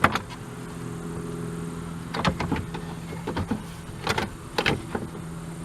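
Plastic trunk trim and trunk liner being handled and fitted: a sharp click at the very start, then a cluster of short plastic knocks and rattles a couple of seconds in and again near the end, over a steady low hum.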